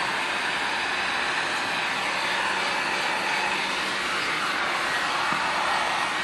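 Heat gun's electric blower running steadily with an even airy rush and a faint hum, as it heats tail light tint film.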